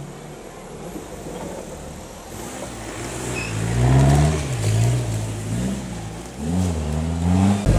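Off-road vehicle's engine revving up and down several times, starting low and building from about three seconds in. Just before the end a louder, steadier engine sound cuts in suddenly.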